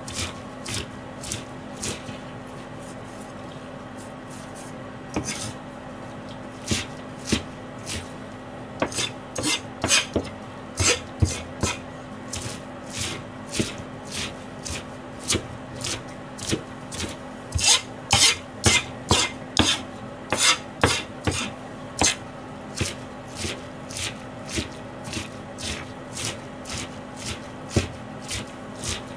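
Large kitchen knife mincing greens on a plastic cutting board: sharp, irregular knocks, a few a second, pausing briefly a few seconds in and quickening into a fast run past the middle. A steady low hum runs underneath.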